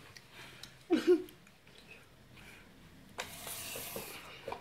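A boy's short voiced groan about a second in, then a breathy rush of air lasting about a second, with a few light clicks.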